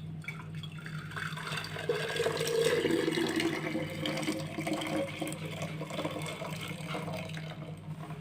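Tamarind concentrate being poured into a jar, a stream of liquid splashing and gurgling as the jar fills, loudest a couple of seconds in.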